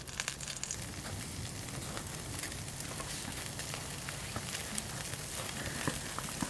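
Charcoal grill sizzling and crackling: steady hiss from the hot coals and the grilling meat, with a few small pops.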